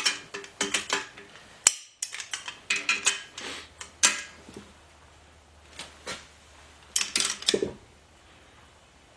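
Wrench and socket clicking and clinking on the bolts of a steel torque plate as it is torqued down onto an engine block, in short bursts of sharp clicks with pauses between. The plate is being tightened in sequence to stress the block as the cylinder head would, ready for honing.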